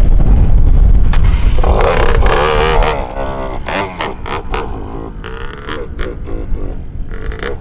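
Wind buffeting the microphone while a 20-year-old Kawasaki 60cc two-stroke motocross bike is push-started. Nearly two seconds in, the engine fires briefly with a rising, wavering note, then falls back to scattered pops and knocks. The owner puts the failure to keep running down to a fuel line clogged after years of standing.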